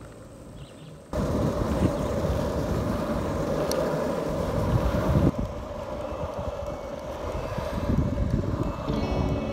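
Loaded Icarus longboard rolling on asphalt: a steady rumble from its urethane wheels mixed with wind on the microphone, which comes in suddenly about a second in.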